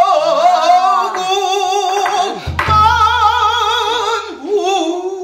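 Male pansori singer singing solo with a wide, wavering vibrato, sliding between long held notes. A single low drum stroke lands about two and a half seconds in.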